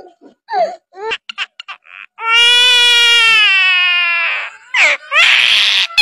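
Common myna calling: a few short clicks and chirps, then one long drawn-out call about two seconds long that falls slightly in pitch, then a harsh hissing screech near the end.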